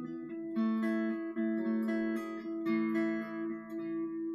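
Acoustic guitar strummed in a steady rhythm, its chords ringing on between strokes, with no singing.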